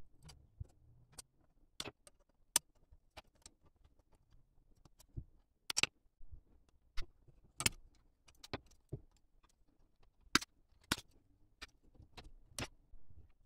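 Irregular sharp clicks and snaps of plastic model-kit parts being handled, cut and pressed together, some louder than others, over near-quiet room tone.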